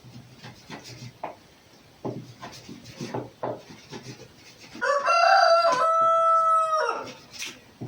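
A rooster crowing once, a loud call of about two seconds starting about five seconds in. Before it, a few faint clicks and taps.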